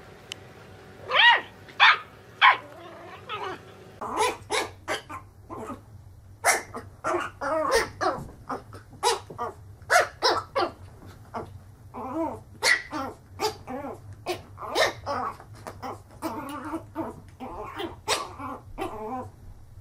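A small terrier barks three times. Then a small fluffy puppy yaps repeatedly in short, high-pitched barks, about two a second, at its own reflection in a mirror.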